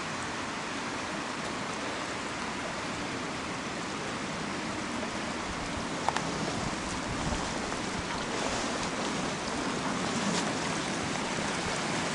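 Mountain stream rushing steadily, with one sharp click about halfway through.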